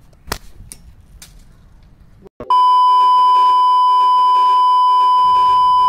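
A few sharp knocks in the first second. Then, about two and a half seconds in, a loud, steady censor bleep tone cuts in and holds, with speech faintly audible beneath it.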